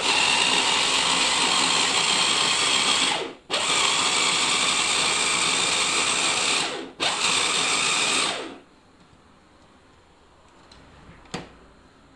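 Small electric push-top mini chopper pulsed in three bursts, its motor and blade whirring through a chunky mixture of bell peppers; it stops about two-thirds of the way in. A single sharp click follows near the end.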